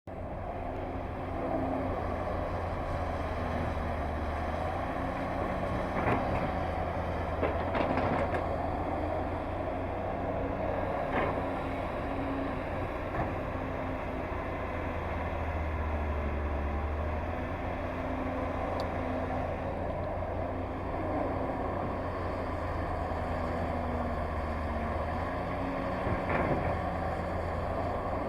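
Excavator's diesel engine running steadily while digging, its low hum rising and easing now and then as it works. A few sharp knocks and clanks are scattered through, loudest around the middle and near the end.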